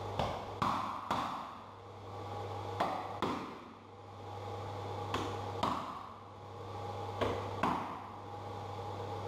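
Hammer striking a chisel to cut through the holding bridges of CNC-cut plywood parts: sharp ringing taps, mostly in pairs about half a second apart, repeated every two seconds or so.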